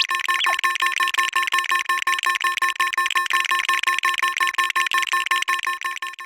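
Japanese railroad crossing warning bell ringing: a fast, steady string of identical electronic dings that stops abruptly at the end.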